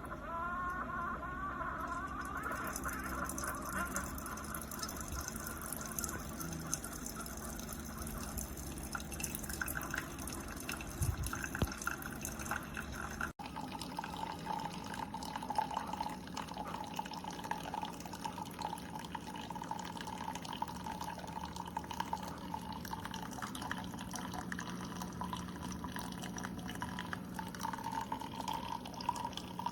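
Keurig K-Slim single-serve pod coffee maker brewing: its pump hums while coffee streams and drips into a cup. The sound breaks off abruptly partway through and picks up with a slightly different hum.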